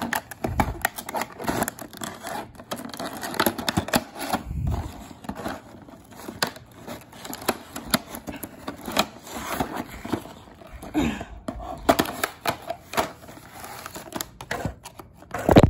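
Cardboard-and-plastic toy packaging being handled and cut open with scissors: rustling, crinkling and many small clicks and snips. Just before the end, a loud knock as a phone falls over.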